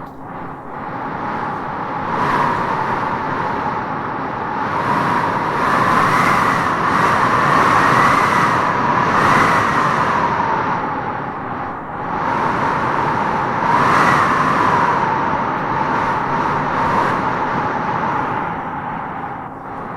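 Howling wind gusting through trees: a steady rush with a whistling howl that swells and rises in pitch with each gust, strongest about six to ten seconds in and again around fourteen seconds.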